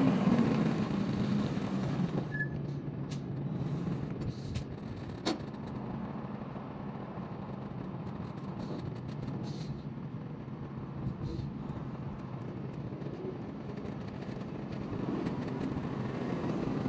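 Semi-truck diesel engine running steadily, louder for the first two seconds and then settling to an even idle, with a few sharp clicks.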